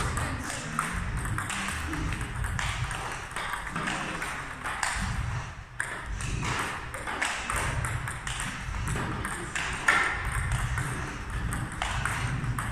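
Table tennis balls fed by a robot, struck with a bat and bouncing on the table: a quick, steady run of sharp clicks and pocks.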